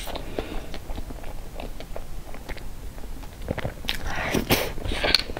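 Close-miked mouth sounds of a person eating cream cake: soft, wet chewing and lip smacks, with a louder spell of noisy mouth sounds about four seconds in as a spoonful of cake goes into the mouth.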